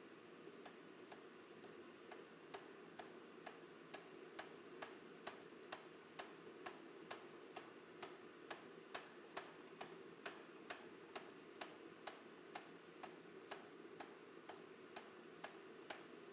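Steady, even ticking at about two ticks a second, over a faint hiss.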